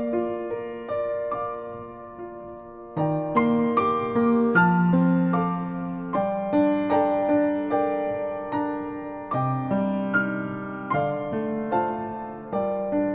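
Slow piano music: a melody of struck notes over lower bass notes, each note fading after it is struck.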